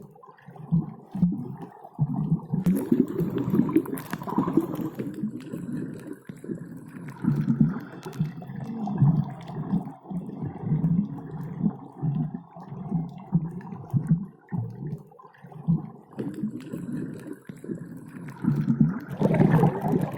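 Underwater diving sound: muffled, low bubbling and gurgling in irregular bursts, as heard below the water surface.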